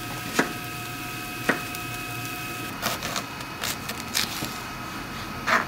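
Kitchen cooking sounds: a steady hiss with a faint steady whine, broken by about seven sharp knocks and taps at uneven spacing, as utensils work on the pan and board.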